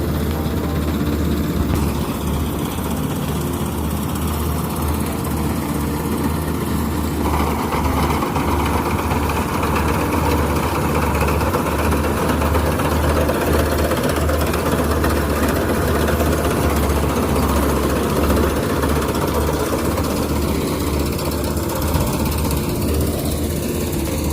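Kubota rice combine harvester's diesel engine running steadily under load, a deep even drone with the machinery's clatter growing fuller about seven seconds in.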